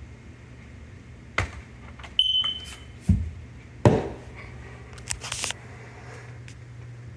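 Several knocks and clicks, with one short high beep from a smoke alarm about two seconds in, over a steady low hum.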